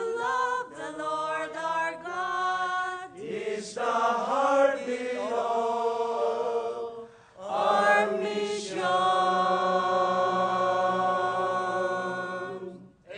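Mixed choir of men and women singing a gospel song in a few phrases. It ends on one long held chord that cuts off near the end.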